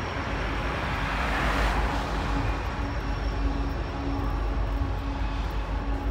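BNSF diesel freight train running by, a steady low rumble with a steady hum over it and a brief swell of noise about a second and a half in.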